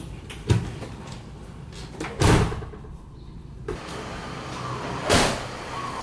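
Door sounds: a few sudden thumps and clatters. The loudest comes about two seconds in, with a rattling tail that stops sharply, and another comes about five seconds in.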